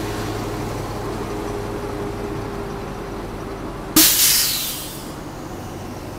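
A vehicle engine running with a steady hum. About four seconds in comes a sudden loud hiss, the loudest thing here, which fades away within about a second.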